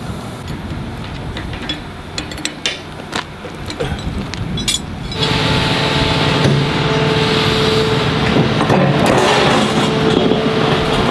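A few sharp metallic clicks and knocks over a low rumble. About five seconds in, this gives way to a louder, steady running of an excavator's engine and hydraulics, with a steady whine, as the machine holds up the bucket on its quick coupler.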